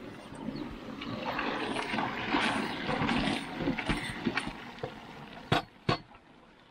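Scraping and clattering of a utensil stirring a large pan of frying pork, then two sharp knocks about half a second apart near the end.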